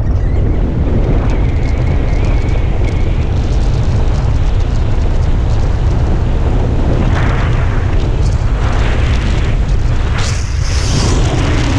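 Wind buffeting a helmet camera's microphone during flight under an open parachute canopy: a heavy, steady low rumble with hiss above it. Louder hissing gusts come near the end.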